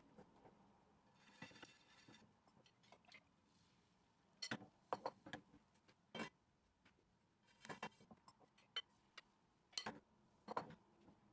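Frying pans and a utensil clinking and knocking on a gas hob's pan supports: a string of light, separate clicks and taps, with a couple of half-second scrapes.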